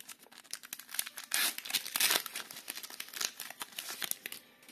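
Foil Pokémon TCG booster pack wrapper being torn open and crinkled, a dense run of crackling, loudest in the middle.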